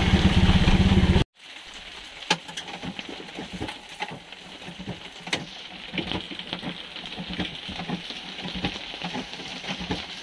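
Auto-rickshaw engine running loudly for about a second, then, after a sudden break, heavy rain pattering with scattered sharp drips.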